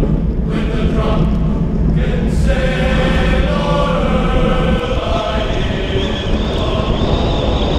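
Background music with choir-like sung voices over a steady low bass.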